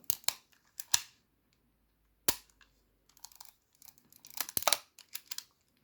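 Rollei 35 camera clicking sharply as the film is wound on: film-advance and shutter mechanism clicks, a few spaced apart, then a quick cluster about four to five seconds in.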